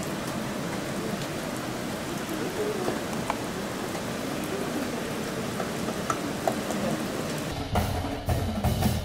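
Steady rain-like outdoor hiss with a few faint sharp clicks; near the end, music with low drum beats comes in.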